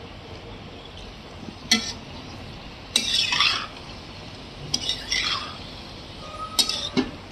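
A spatula stirring and scraping potatoes and peas around a metal kadhai, in four separate scraping strokes.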